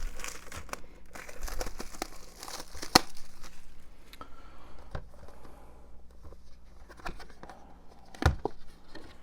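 Plastic shrink-wrap being torn and peeled off a 4K Blu-ray steelbook case: crinkling and tearing with many small clicks, one sharp snap about three seconds in and a low thump near the end.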